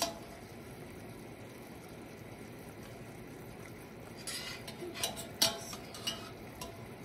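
Sugar syrup boiling in a stainless steel saucepan on a gas burner, a low steady hiss. From about four seconds in, a metal utensil clinks and scrapes against the pan several times.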